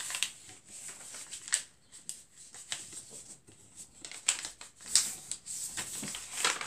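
A sheet of A4 paper being folded and creased by hand on a wooden table: irregular crisp rustles and crinkles, a few sharper ones as the folds are pressed flat.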